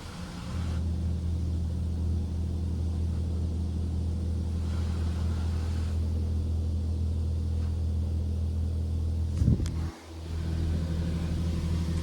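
Steady low mechanical hum heard from inside a car during a touchless automatic car wash cycle, strengthening within the first second. About nine and a half seconds in it swells and rises briefly, then dips for a moment before running on.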